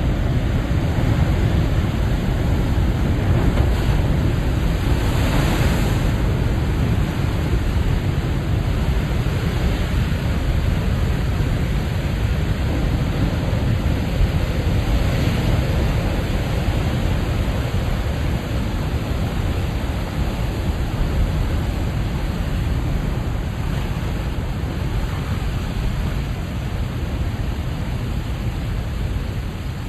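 Big ocean waves breaking on the shore: a steady low rumble of surf, with a louder rush of hissing water about five seconds in and again around fifteen seconds.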